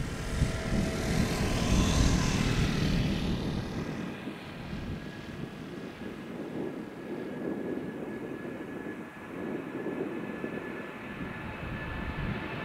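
Boeing 787 airliner's twin turbofan engines at takeoff thrust during the takeoff roll: a broad jet rumble with a steady high whine over it. It is louder and hissier in the first few seconds, then settles to a lower rumble.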